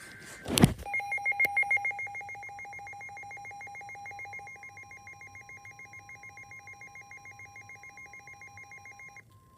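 Emergency alert receiver signalling between warnings. A short burst of data tones and a loud click come first. Then a rapidly pulsing two-tone electronic alert beep runs for about eight seconds and cuts off, with a faint steady tone entering underneath about two and a half seconds in.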